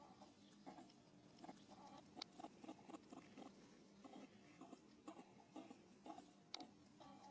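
Faint, irregular clicking and soft rustling from animals close by, with chewing-like clicks scattered throughout.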